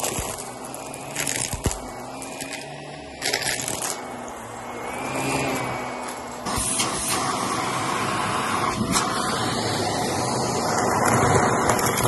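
Shark upright vacuum cleaner running over carpet, with two short crackling bursts, about a second in and about three seconds in. About six and a half seconds in the sound jumps to a louder, denser steady rush of suction.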